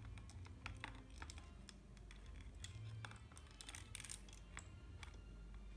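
Faint, irregular light clicks and taps of a slip bobber rig (float, stopper bead, weight and hook) knocking against a plastic bottle as it is lowered into the water, coming thickest a little after halfway.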